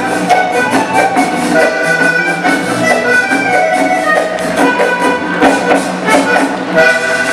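Live Panamanian folk conjunto playing el punto: accordion melody over strummed guitars and hand drums in a steady beat.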